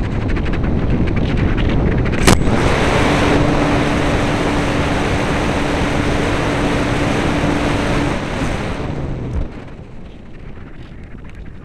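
Wind rushing over the onboard camera's microphone on a Radian RC glider in flight, with a sharp click about two seconds in. The rush is loud with a steady low hum through the middle, then drops off abruptly about nine seconds in.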